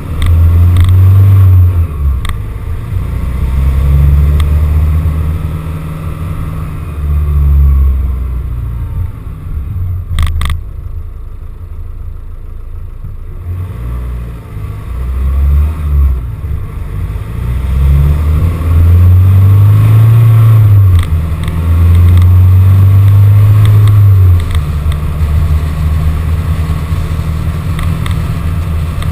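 Van engine running as the van drives along, its revs rising and falling over and over, with a brief double click about ten seconds in.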